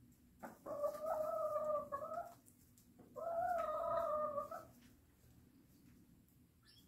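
White Leghorn chicken giving two long, drawn-out calls, each about a second and a half long, the first starting about half a second in and the second about three seconds in.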